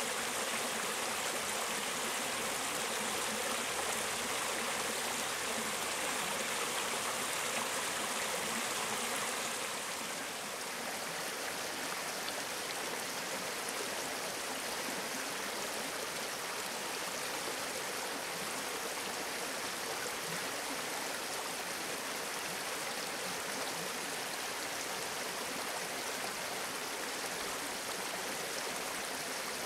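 Mountain stream running over rocks, a steady rush of water. About ten seconds in it becomes a little quieter and softer.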